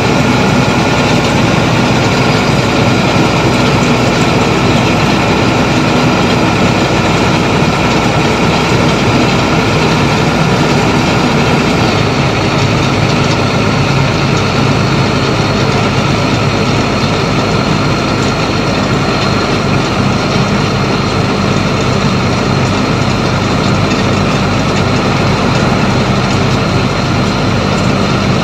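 Truck's diesel engine running steadily at highway speed, heard from inside the cab along with road noise. Its note shifts slightly about twelve seconds in.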